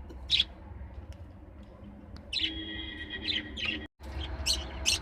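Small caged pet songbirds chirping: a few short, sharp chirps and one longer held note about halfway through.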